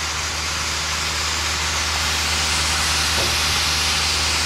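Steady hissing noise over a low, even hum, like machinery or rushing air running continuously, getting slightly louder about halfway through.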